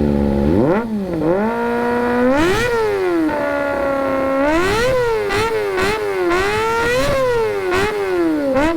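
Kawasaki ZX-25R's 250 cc inline-four revved through a Villain Conical aftermarket exhaust. It idles, then rises in a few revs that are held briefly, and ends in a run of quick throttle blips.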